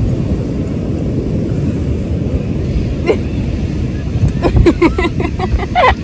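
Wind buffeting the microphone, a steady low rumble with the surf mixed in, and a voice briefly near the end.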